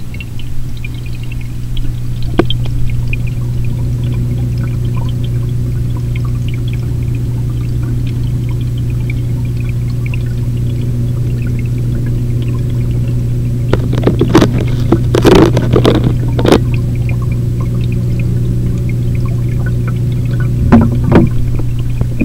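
Aquarium filter running: a steady low electric hum with water pouring and trickling. A cluster of knocks and clatter comes about two-thirds of the way through, and a couple more near the end.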